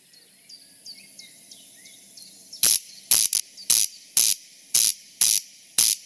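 Corncrake calling its repeated rasping 'crex crex', like a finger strummed along a plastic comb. The call starts about two and a half seconds in and comes about twice a second. Faint chirps are heard before it.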